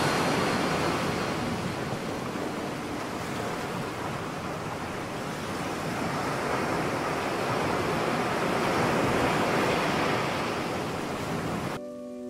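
Small waves washing in over a pebble shore: a steady rush of surf that swells a little past the middle. It cuts off suddenly near the end, where music begins.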